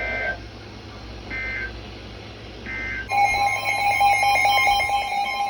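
Three short warbling data bursts of an Emergency Alert System SAME end-of-message code, about 1.3 seconds apart. About three seconds in, a loud steady EAS attention tone sets in, the alarm that opens the next alert.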